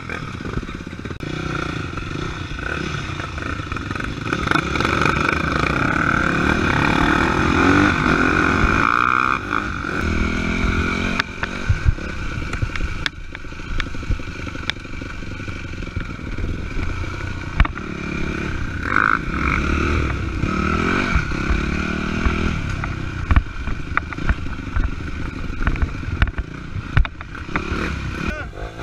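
Dirt bike engine heard from on board, revving up and falling back again and again as it is ridden along a rough trail, with occasional knocks and rattles.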